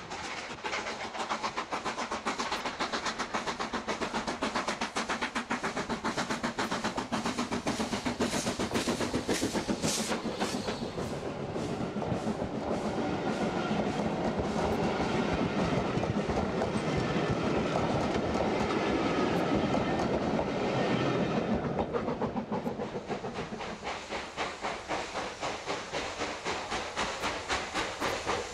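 A steam locomotive hauling a passenger train passes close by, its exhaust chuffing rapidly, then the coaches roll past with a clatter of wheels on the rails. In the last quarter a steam locomotive's exhaust beats come through strongly and regularly as it works hard.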